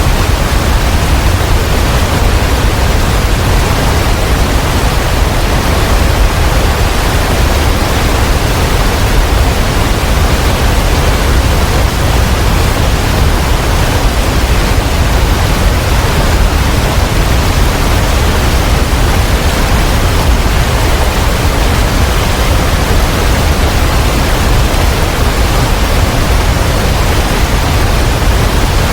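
Abbey Falls, a 70-foot waterfall, heard up close as a loud, steady rush of falling water.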